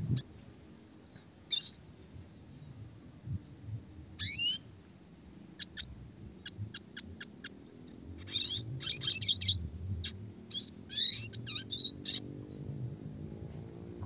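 Red siskin singing. A few separate sharp high chirps open the song, then about halfway in comes a fast run of short clipped notes, breaking into dense twittering with down-slurred notes that stops about two seconds before the end.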